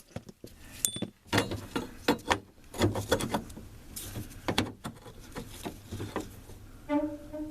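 Irregular clicks and knocks of hand tools and metal parts being worked on a truck's door hinge, while the old hinge pin and bushing are knocked out.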